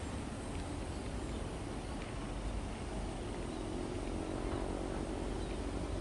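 Ex-JR 205-series electric commuter train approaching from a distance: a steady low rumble of the train on the track, with a faint hum in the second half.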